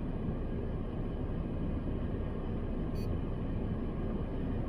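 Steady low rumble inside a parked car's cabin, with one faint click about three seconds in.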